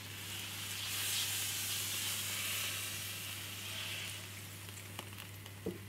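Hot frying pan sizzling as the red wine used to deglaze it is poured out over lamb shanks in a casserole dish. The sizzle swells about a second in and fades near the end.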